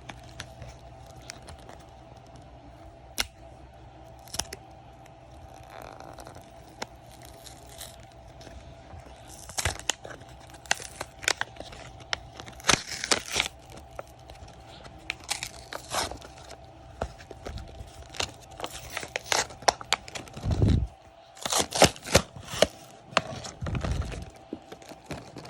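Plastic packaging of a fidget toy being torn open and crinkled by hand: quiet at first, then many scattered sharp crackles and clicks from about a third of the way in.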